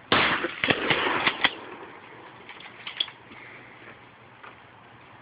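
A sudden loud crash right at the start, followed by about a second and a half of crackling and snapping, then dying down to faint scattered clicks.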